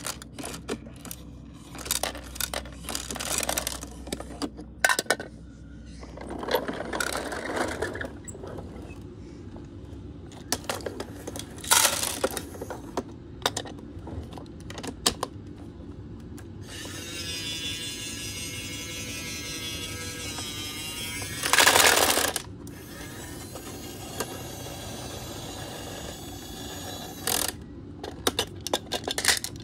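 Small plastic toy wheelie bins and a toy garbage truck being handled: bins clicking, knocking and scraping as they are picked up, hooked onto the truck's lifter and set down on the floor. About halfway through, a wavering pitched tone lasts for about four seconds, followed by a loud clatter.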